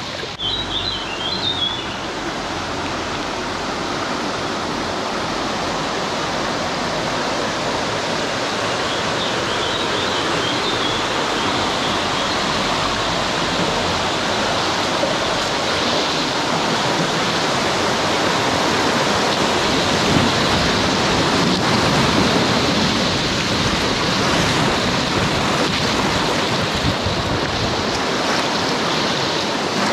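Steady rushing of river water, getting slightly louder as it goes on.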